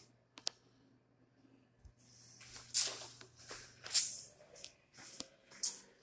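Footsteps going down stairwell stairs, a step roughly every half second in the second half, after two sharp clicks near the start, with a low steady hum underneath.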